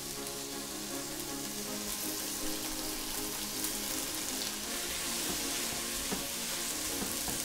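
Chopped onion frying in sunflower oil in a multicooker's nonstick bowl, a steady sizzle with a few faint ticks in the second half.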